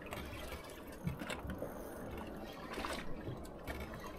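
Water lapping against the hull of a small boat, with a couple of sharper slaps.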